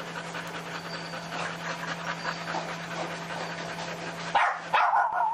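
Many dogs barking together in a kennel, a dense continuous chorus. About four seconds in, much louder barks break in over it.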